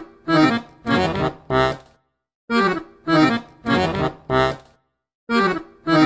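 Accordion playing a short phrase of four detached notes, then a brief pause. The same phrase repeats about every three seconds, as in a looped sound effect.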